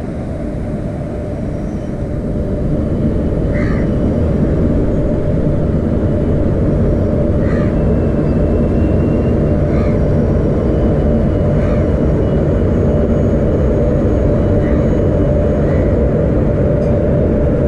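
Passenger train arriving along the platform: a steady low rumble that builds over the first two or three seconds and then holds. Faint short high squeaks come every couple of seconds.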